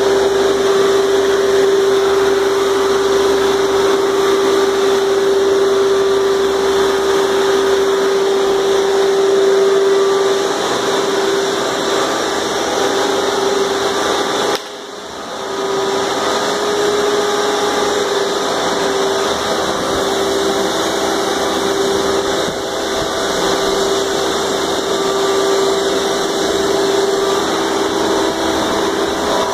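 Wet/dry shop vacuums running steadily while sucking up floodwater: a loud, even motor hum with one held tone, briefly quieter about halfway through.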